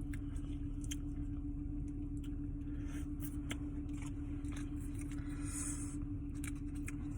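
A person chewing a bite of crispy fried chicken sandwich, with scattered small clicks and crunches, over a steady low hum with one constant tone, typical of a car cabin with the engine running.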